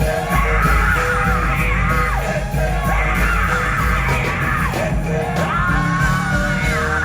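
Live gospel band vamping, with heavy bass and drums driving under a singer's wordless, wavering high vocal runs and shouts.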